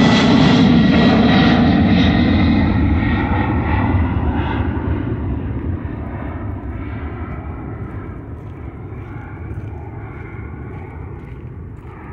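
Jet engines of a Condor Boeing 767 airliner climbing out, a loud rumble with a faint high whine. The sound grows steadily quieter and duller as the aircraft draws away.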